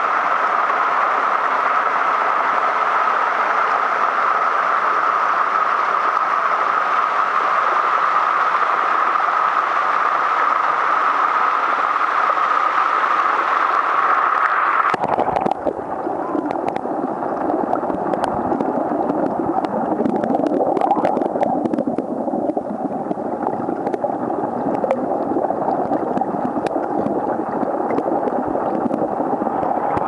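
Small waterfall tumbling over rocks: a steady rush of falling water. About halfway through, the sound drops to a muffled, lower churning of water and bubbles with scattered clicks, heard from under the water surface.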